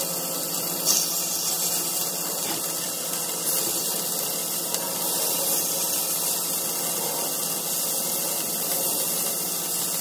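Thin beef steaks frying in hot olive oil in a frying pan: a steady sizzle, with a brief louder flare about a second in.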